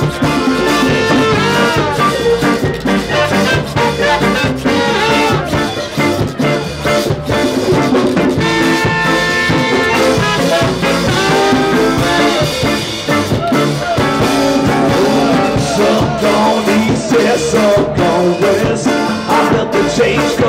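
A band playing live, with trombone, guitar, drums and a plastic guiro scraped with a stick close by.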